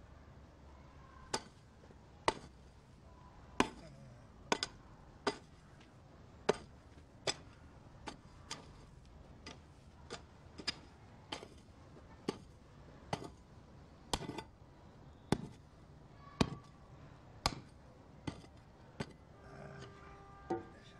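Single sharp knocks or taps at uneven intervals, roughly one a second, over a low steady background.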